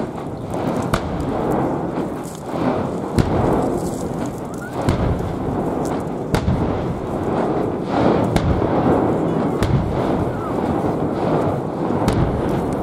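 Fireworks display: aerial shells bursting with many sharp bangs at irregular intervals, over a steady rushing background.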